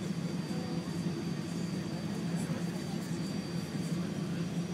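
Steady cabin noise inside an Airbus A380 on approach: a low, even rumble of engines and airflow, with a faint steady high whine over it.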